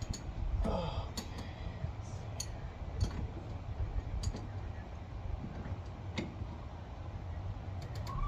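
Scattered light metallic clicks and taps from a car battery terminal being worked on by hand under the hood, over a steady low rumble.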